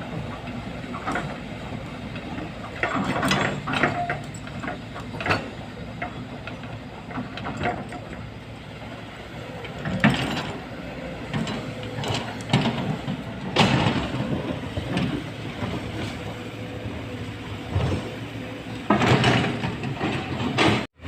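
Excavator engine running steadily under irregular clanks, knocks and scrapes of its bucket working rock, with louder knocks about ten seconds in, near fourteen seconds and shortly before the end.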